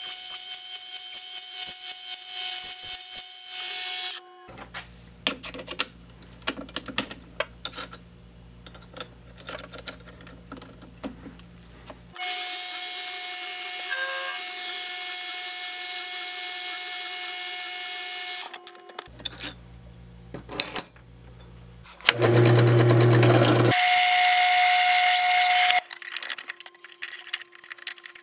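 Mini lathe running while a twist drill bores into spinning brass stock for the first four seconds or so. There is a stretch of clicks and handling noise over a low hum, then the lathe runs again from about twelve seconds in, turning a brass tube. About twenty-two seconds in a drill press starts with a low hum and drills into brass held in a vise, followed by a few clicks.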